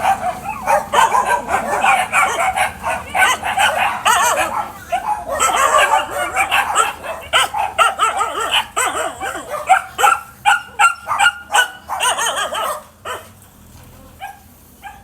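Dogs barking and yipping, short barks crowding over one another, then coming as separate barks about ten seconds in before dying down near the end.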